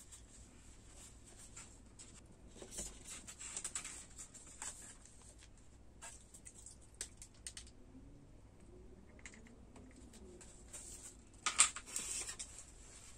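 Paper tissue rustling and crumpling between fingers, with light clicks and taps from handling a plastic sushi tray; a louder crinkle comes near the end.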